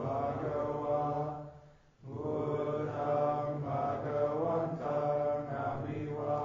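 Voices chanting a Pali Buddhist chant, held on a near-steady pitch. There is a pause for breath about a second and a half in, then the chant resumes.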